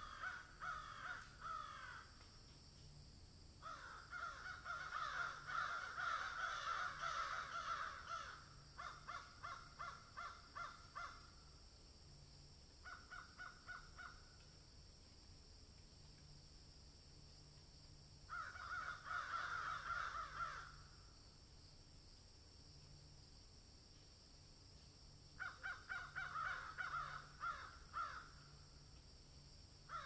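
Harsh, caw-like animal calls, rapidly repeated in bouts of one to four seconds with quiet gaps between, about six bouts in all.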